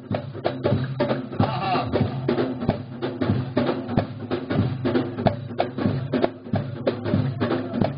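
Live Algerian folk music: several large frame drums (bendir) and a deeper drum beating a quick, steady rhythm over a held low melody line.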